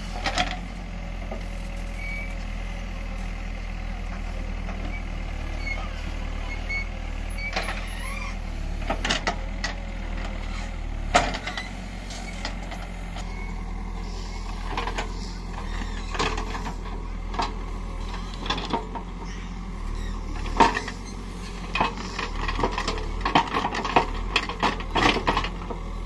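Caterpillar backhoe loader's diesel engine running steadily under load while the rear backhoe arm digs, with sharp knocks and clanks from the arm and bucket working the soil, coming more often in the second half.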